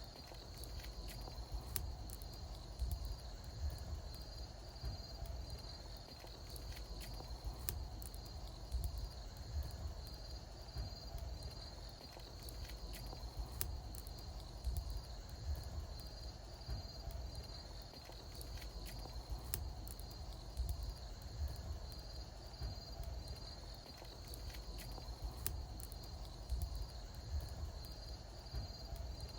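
Wood bonfire crackling, with irregular sharp pops over a steady low rumble, while crickets chirp in a continuous pulsing trill.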